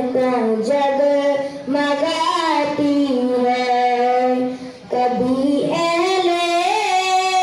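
A boy singing a naat, an Islamic devotional hymn, solo and unaccompanied into a microphone. He holds long, wavering notes, with a short breath about five seconds in.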